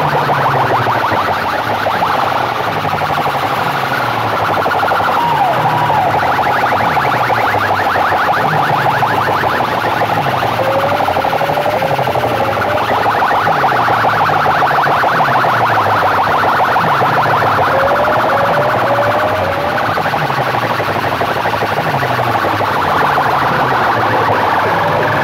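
Loudspeaker sound systems with banks of horn loudspeakers blasting electronic music at very high volume in a sound competition. Siren-like chirping tones play over a bass pattern that falls in pitch about once a second, the whole of it dense and distorted.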